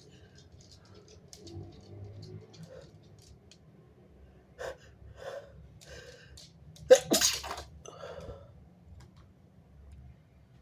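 A person sneezing: three short catching breaths, then one loud sneeze about seven seconds in, followed by a quieter breath out. Faint small clicks come before the build-up.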